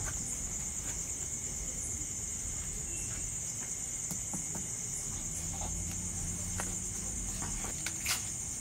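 Crickets chirring in a steady, high-pitched drone, with a few faint clicks and taps over it.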